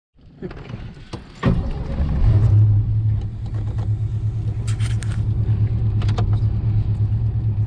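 Fox-body Ford Mustang's engine starting about a second and a half in, then settling into a steady, even idle with a low rumble.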